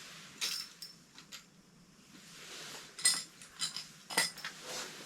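A few sharp clicks and clinks of small hard objects, the loudest about three seconds in and again just after four seconds, with soft rustling between them.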